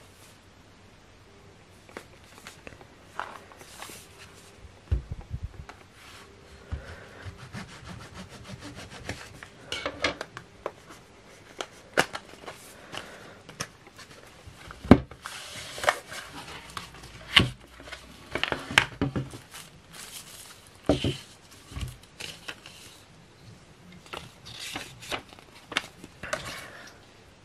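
Hands unboxing a cardboard power bank box: cardboard rubbing and scraping as the box is worked open with a pointed tool and its lid and inner tray are slid out, with irregular sharp taps and a few louder knocks as the box parts and contents are handled on the table.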